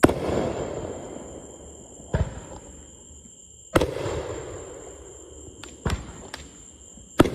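Aerial fireworks bursting: five sharp bangs one to two seconds apart, the first and last loudest, with a rolling echo trailing after the bigger ones.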